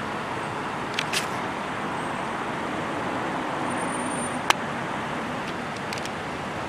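Steady road traffic noise, with a few short sharp clicks about a second in, at four and a half seconds and near six seconds.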